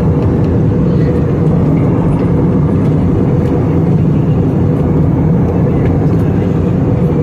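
Steady cabin noise of an Airbus A320-family airliner in flight, heard from a window seat: the even, unbroken rumble of the jet engines and the air rushing past the fuselage, strongest in the low range.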